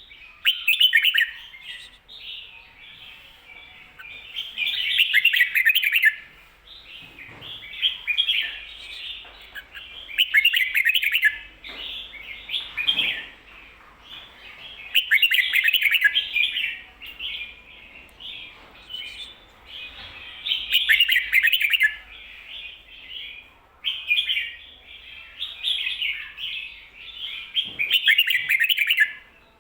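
Red-whiskered bulbul singing: loud, quick warbled song phrases about every five seconds, with softer chatter between them. The phrases are the doubled 'ko-ta-ra' pattern that Thai keepers call 'beun'.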